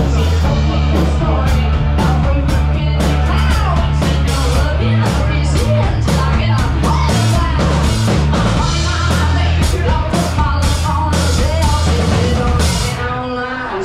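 Live rock band playing: a woman singing over a drum kit and a heavy, steady bass. The music thins out near the end.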